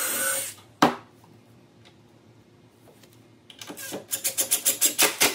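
A cordless drill runs briefly, pre-drilling into pine, and stops about half a second in, followed by a single knock. From about three and a half seconds in, a DeWalt cordless impact driver hammers a screw in with a fast, even rattle of impacts.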